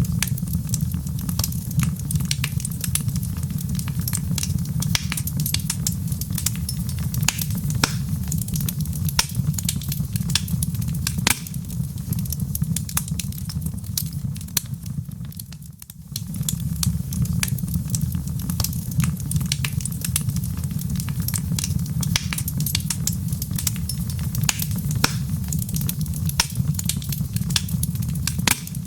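Wood fire in a fireplace crackling: many sharp pops and snaps at irregular intervals over a steady low rumble, dipping briefly about halfway through.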